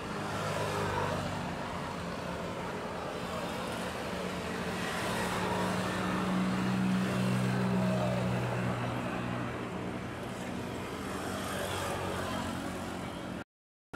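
Steady low engine hum over the general din of a busy harbour quay. It swells a little in the middle and cuts out for a moment near the end.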